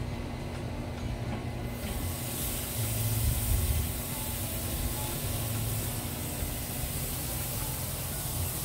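Seasoned bone-in ribeye sizzling on the hot grate of a charcoal kettle grill: a steady hiss that starts about two seconds in as the steak goes onto the grate.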